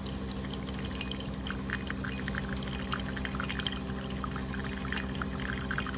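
De'Longhi Dedica Duo espresso machine pulling a shot: the pump hums steadily while espresso trickles and drips into the cup below.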